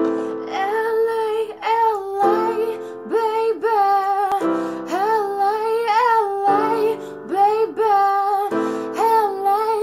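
A woman singing a slow melody while accompanying herself on an electronic keyboard. The keyboard holds chords that change every couple of seconds, and her voice glides and wavers between notes above them.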